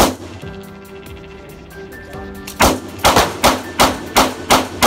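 Handgun shots in an indoor firing range: one loud shot, then after about two and a half seconds a rapid string of about eight shots, roughly three a second, echoing off the range walls. Background music plays underneath.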